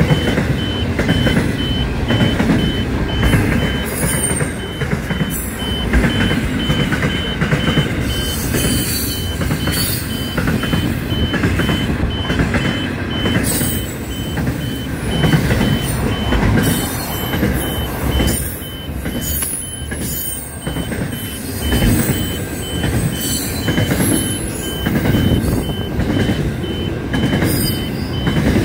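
Intermodal freight train of container wagons rolling past: a steady rumble of wheels on the rails with repeated knocks and occasional high-pitched squeals.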